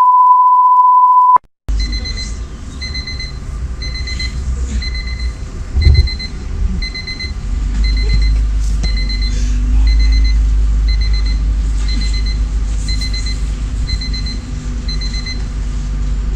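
A steady electronic beep tone for about a second and a half, then a digital alarm clock beeping in a repeating run of short, high beeps, about two a second, over a low rumble.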